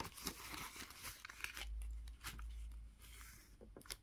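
Clear plastic binder pouches crinkling and rustling as a hand handles them, with a scatter of small clicks and taps.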